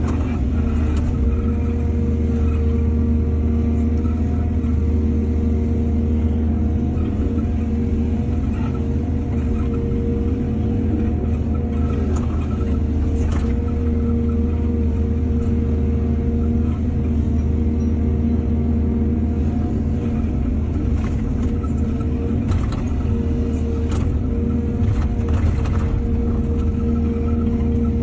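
Heavy diesel engine of an excavator running steadily under load with a low, even drone. Scattered short clanks and scrapes are heard, most around halfway through and again near the end, as soil is dug and loaded.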